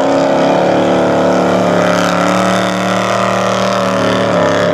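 Formula Offroad buggy's engine held at high revs, nearly steady in pitch, as the buggy climbs a steep loose sand slope. The pitch sags slightly and picks up again near the end.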